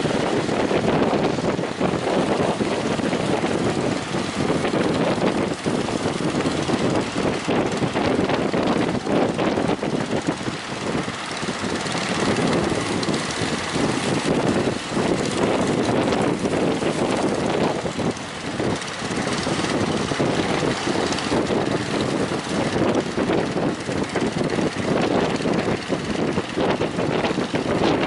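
A speedboat's engine running steadily under heavy, gusting wind noise on the microphone.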